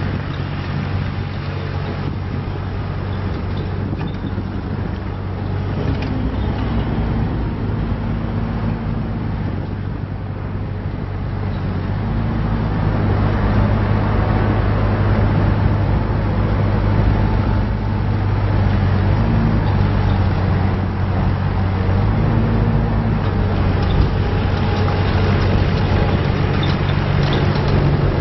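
Terex TC16 mini excavator's diesel engine running steadily, getting louder about halfway through.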